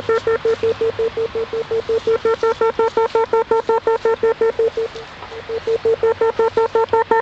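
Dynatel 573A cable locator receiver beeping rapidly, about six or seven short beeps a second at one steady mid pitch, as it picks up the tracing signal on the cable. The beeps drop out briefly about five seconds in, then resume.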